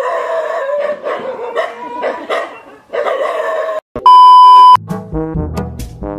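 A dog whining for about four seconds, then a loud, steady beep for under a second. Brass music starts near the end.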